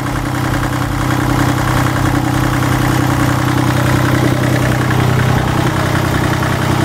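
Sailboat's inboard marine diesel engine idling steadily, being warmed up before an oil change.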